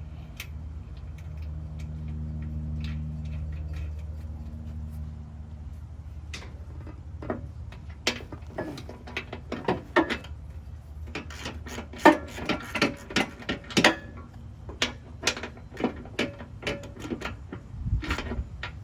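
A steady low hum fades out over the first several seconds. Then comes an irregular run of sharp clicks and knocks, which are hand tools and bolts working on the mower deck's spindle mount as the missing bolts and nuts are fitted.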